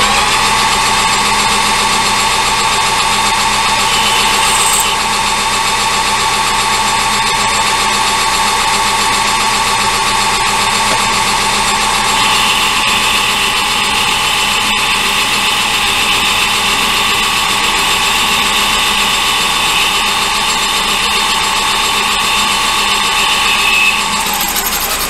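Metal lathe running steadily while a small boring bar takes a light boring cut in steel. A higher-pitched whine joins about halfway through, and the machine winds down with a falling pitch at the end.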